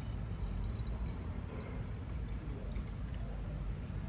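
Battery solution being poured from a bottle into the cells of a lead-acid battery, a steady trickling fill.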